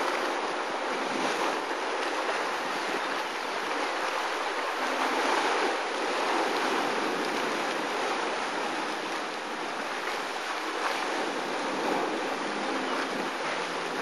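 Steady churning, hissing rush of a bubbling, steaming mud pool, with a few faint pops from bursting bubbles.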